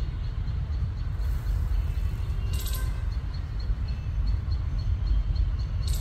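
Wind buffeting a phone microphone outdoors, a steady fluttering low rumble. A brief high-pitched hiss or chirp comes about two and a half seconds in and again at the very end.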